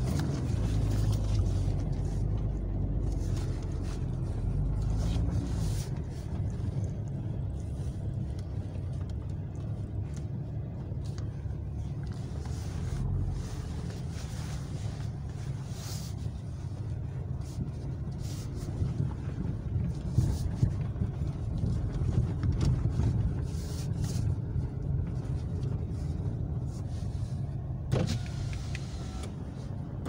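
Dacia Sandero Stepway heard from inside the cabin while driving slowly on a snowy track: a steady low engine and tyre drone, with scattered sharp knocks and rattles from the car over the uneven ground.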